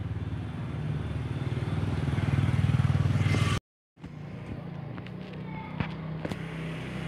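Engine running steadily, growing louder over the first three seconds. The sound drops out for a moment just after the middle, then a similar engine hum carries on with a few light clicks.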